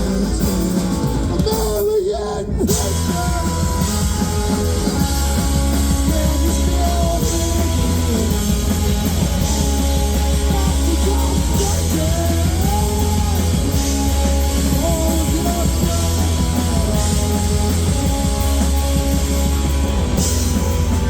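Live rock band playing loud with guitars and drums, in a long stretch between sung lines. There is a brief dip about two seconds in.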